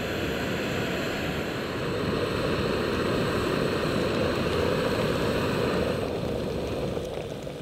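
Jetboil MiniMo backpacking stove's gas burner running at a steady rushing hiss, cutting down near the end as it is shut off.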